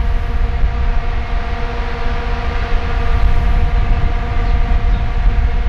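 Trakker twin-head battery fan running on its third and highest speed: a steady motor and blade whine with several held tones, over a rush of air buffeting the microphone.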